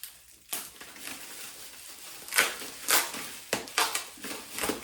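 Packaging being opened and handled: a string of short crinkling, crackling rustles, about seven of them, as the kit's wrappings are pulled apart.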